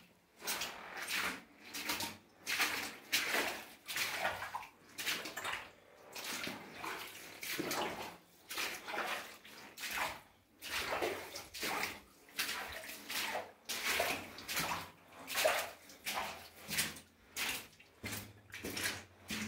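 Footsteps splashing and sloshing through water on a mine tunnel floor, a steady walking rhythm of about one and a half steps a second.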